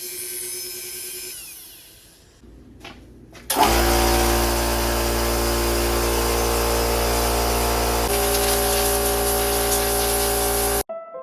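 Dremel rotary tool grinding rust holes into a model car body: it runs at a steady high speed from about three and a half seconds in and cuts off abruptly near the end.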